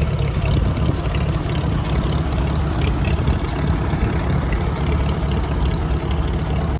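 1947 Farmall H tractor's four-cylinder engine running steadily just after being started.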